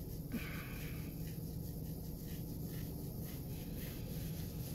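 Faint, short scratching strokes, like a pen writing on paper, over a low steady hum.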